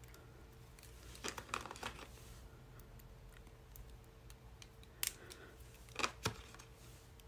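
Small plastic clicks and rattles as rechargeable AA batteries, a charging cable's plug and clear plastic battery cases are handled. There is a cluster of clicks about a second in, then a few sharp single clicks around five and six seconds in, over a faint steady hum.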